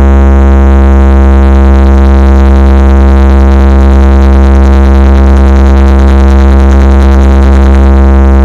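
DJ sound-system speakers playing a bass vibration test after a drop: one very loud, steady, unchanging deep bass tone with a buzzy stack of overtones.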